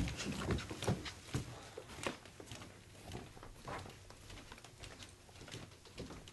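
Footsteps of people hurrying down a staircase, a run of thuds in the first couple of seconds that then give way to fainter, sparser steps across a floor.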